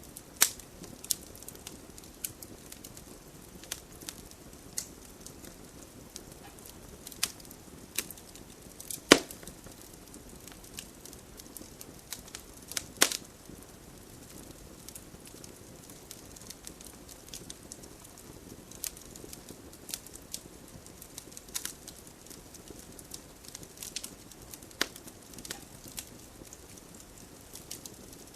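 Campfire crackling: irregular sharp pops and snaps of burning wood over a soft steady hiss, with the loudest pops about 9 and 13 seconds in.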